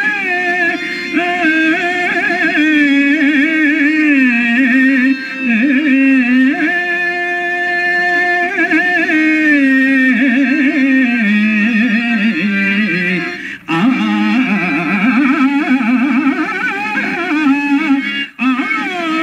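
A man singing a Telugu stage-drama padyam (verse) in a drawn-out, ornamented melodic line, over steady held notes from an accompanying instrument. The sound drops out for an instant twice, about two-thirds of the way through and near the end.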